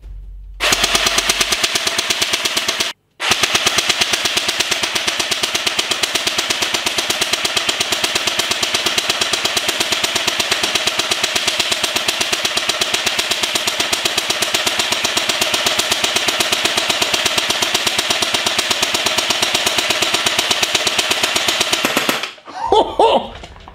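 CYMA CM032A airsoft electric gun (M14 / SOCOM 16 replica, full metal version 7 gearbox) firing on full auto in one long rapid rattle that empties the magazine, with a short break about three seconds in.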